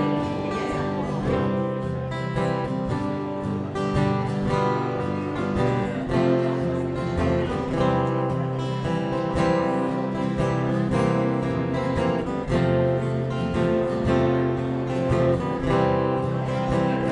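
Acoustic guitars strumming and picking chords in an instrumental tune.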